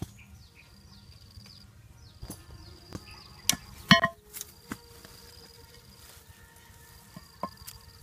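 Insects buzzing in thin, high, on-and-off runs, with a few sharp clacks and one loud ringing knock a little before the middle as the deadfall trap's flat board drops to the ground.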